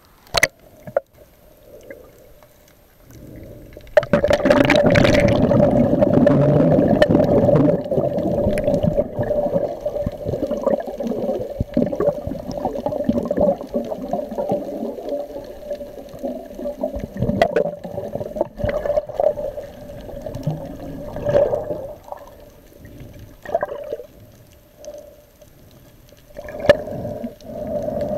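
Muffled water sounds heard underwater: sloshing and gurgling over a steady hum. It swells suddenly loud about four seconds in, eases after about eight seconds, and comes back in a few short surges near the end.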